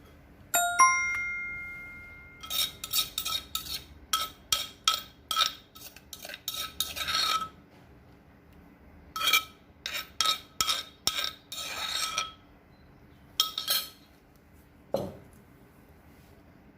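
A metal spoon clinking and scraping against a dish. One ringing clink comes about half a second in, then three runs of quick taps and scrapes, and a duller knock near the end.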